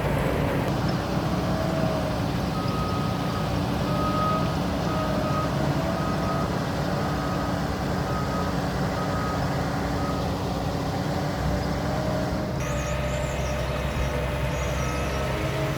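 Diesel farm machinery running steadily while a reversing alarm beeps repeatedly for several seconds, then stops. Near the end the engine note shifts.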